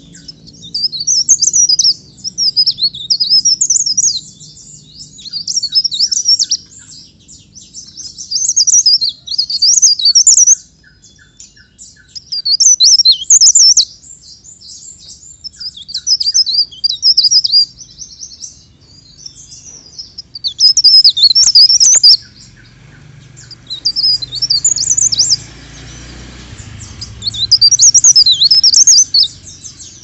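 Cikrak daun (a leaf warbler) singing in a cage: repeated high, fast twittering phrases of a second or two each, with short pauses between them.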